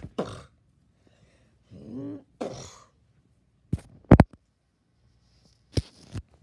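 A wordless vocal sound effect made by mouth about two seconds in, followed by several short sharp thumps or pops, the loudest about four seconds in and two more near the end.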